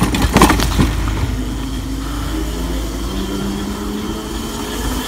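Razor RSF650 electric street bike's motor whining as the bike rides off, the whine climbing slowly in pitch as it picks up speed, over a low rumble of wind on the microphone. A few sharp knocks come in the first second.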